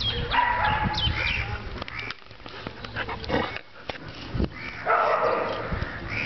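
Dogs yipping and whining in two bursts, one just after the start and another about five seconds in.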